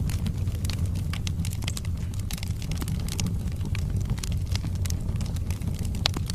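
Wood fire burning in a fireplace: a steady low rumble of flames with irregular crackles and snaps from the logs, and one sharper pop near the end.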